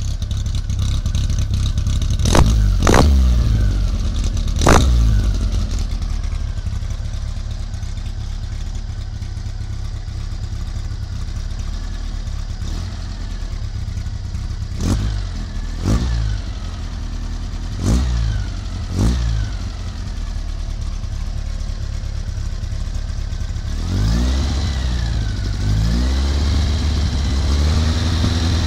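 A 1776 cc Gene Berg-built air-cooled VW flat-four engine idling with a steady rumble and blipped sharply at the throttle about seven times, mostly in quick pairs. Near the end the revs are held up, rising and falling for several seconds.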